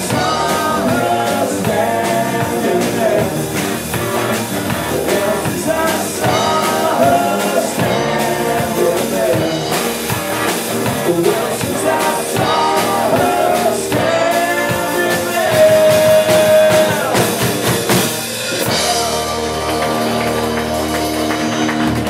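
Live rock band playing: a male singer sings over acoustic and electric guitars, bass and a drum kit.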